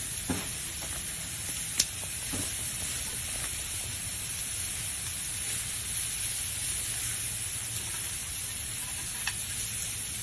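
Meat sizzling on a charcoal grill with a steady hiss, and a few sharp clicks of metal tongs against the meat and grill, the loudest about two seconds in.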